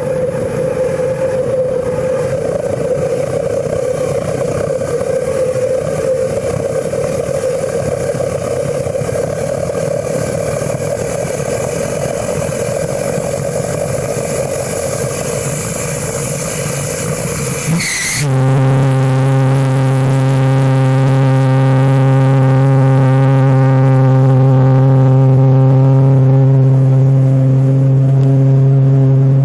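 Homebuilt propane-fuelled pressure jet engine of sheet metal and tubing with no moving parts, running with a loud, steady roar. About two-thirds of the way through, the sound changes abruptly to a steady low drone with overtones as the go-kart drives off under jet thrust.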